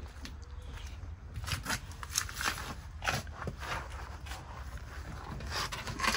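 Short scrapes, rustles and clicks of hands and clothing working under a pickup truck on concrete, a scattered string of them from about a second and a half in, over a low rumble.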